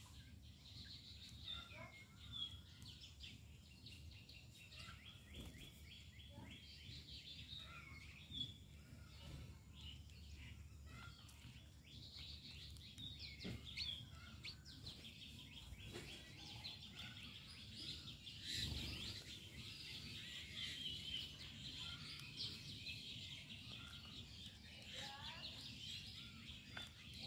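Faint outdoor ambience of many small birds chirping and twittering over a steady low background noise.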